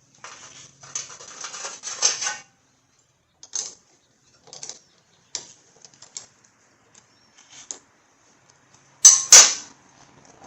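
Metal tools and parts being handled: about two seconds of dense clattering clicks, then scattered single clicks and two loud sharp knocks close together near the end.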